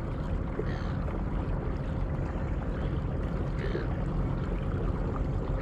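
Steady wind and water noise around a kayak on open water, with a faint steady hum underneath. A few short, high, downward-gliding chirps come and go.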